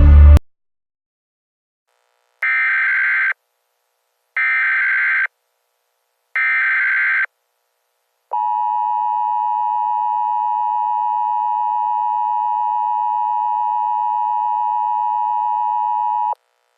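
Emergency Alert System header: three short bursts of buzzing digital data tones about two seconds apart, then the steady two-tone EAS attention signal held for about eight seconds before it cuts off.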